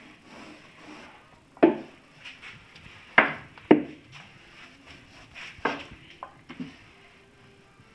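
Sharp knocks and taps on a plywood cabinet, about six in all, with the loudest a second and a half in and two more close together around three seconds in. They come from a small foam paint roller and its wire frame bumping against the wood as finish is rolled on inside the cabinet.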